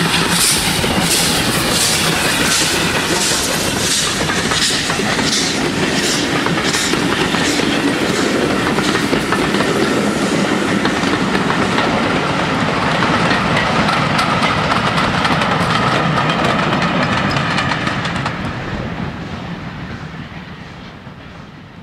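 Dubbed recording of a full-size steam train passing: the locomotive goes by with regular beats about twice a second, then the carriages roll past with a clickety-clack over the rail joints. It fades away over the last few seconds.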